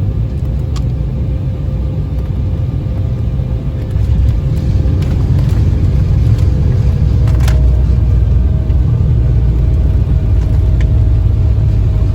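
Airliner cabin noise: a steady, loud low rumble of jet engines and airflow. It grows louder about four seconds in, and there is a single sharp click about midway.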